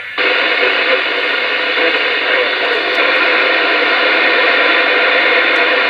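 CB radio giving a steady rush of static from its speaker, with a faint steady tone under the hiss. It cuts in abruptly at the start and runs without a break.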